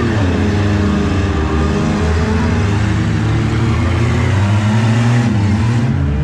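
Autocross cars' engines revving up and down as they race around a dirt track.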